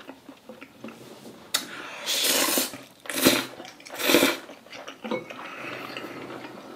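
A person slurping a mouthful of black-bean-sauce instant noodles in three loud, noisy pulls, about one and a half, three and four seconds in.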